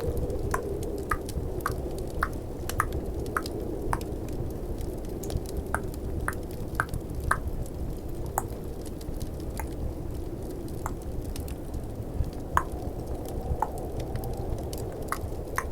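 Close-miked tongue clicks, small wet pops coming irregularly about one or two a second. Under them runs a steady low bed of snowstorm and fireplace ambience.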